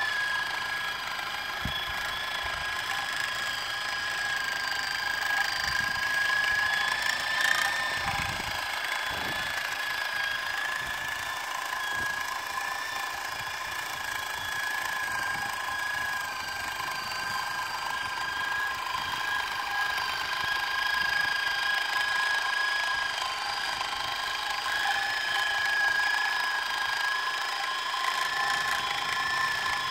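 Handheld electric sewing machine running continuously as it stitches the seam joining two rolls of hybrid turf: a steady high whine that wavers slightly in pitch, with a few dull knocks from handling.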